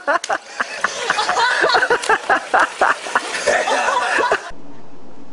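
A person laughing in quick, repeated high-pitched bursts. The laughter cuts off suddenly about four and a half seconds in, leaving a steady faint hum.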